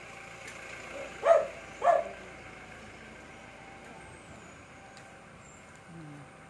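A dog barking twice in quick succession, about a second in, over a steady background hum.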